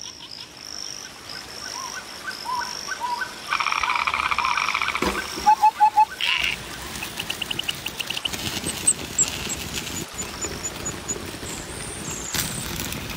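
Frogs and birds calling in a chorus of croaks, trills and chirps. A buzzing trill is followed by four loud quick calls, the loudest sound here, about five and a half seconds in.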